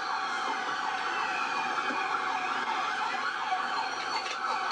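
Several police car sirens sounding at once, overlapping, some sweeping rapidly up and down in a yelp and others in slower wails.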